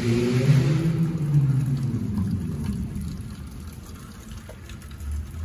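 A car driving past on a wet street: engine and tyre hiss loudest in the first second or so, then fading away.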